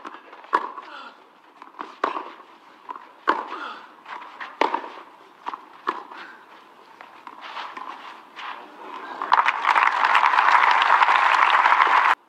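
Tennis ball struck back and forth by rackets in a rally, a sharp pop roughly every 1.3 seconds. About nine seconds in, the crowd breaks into loud applause that cuts off suddenly.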